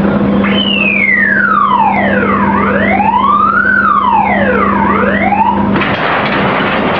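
A wailing tone that falls steeply from high to low, rises again, falls a second time and climbs back before stopping about six seconds in, over a steady low machinery hum.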